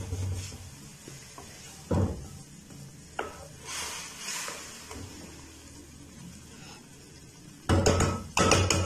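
Wooden spatula stirring vegetables and spices cooking in water in an aluminium karahi, scraping and knocking against the pan. There are single knocks about two and three seconds in, and a loud run of strokes near the end.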